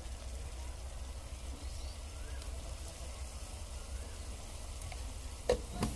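Chicken sizzling faintly in an aluminium pot over a wood fire, a steady low hiss over a low rumble. Two sharp clicks about half a second apart near the end.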